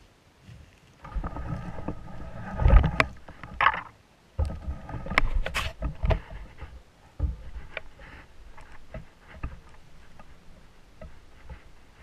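Close rustling and knocking from camouflage clothing and gear as a seated hunter shifts his shotgun. It comes in irregular bursts with sharp clicks over the first half, then thins to scattered faint ticks.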